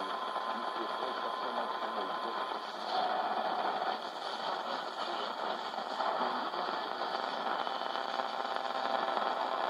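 GE 7-2877H AM radio giving a steady hiss of static between stations while it is tuned across the band, with a thin steady whistle for the first couple of seconds.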